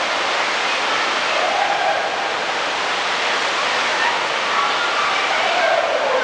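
Steady rush of water through an indoor water park, with faint distant voices over it.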